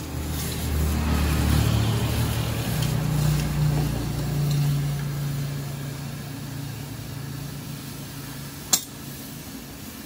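A low motor hum that swells over the first couple of seconds, steps up in pitch, then slowly fades, with a single sharp click near the end.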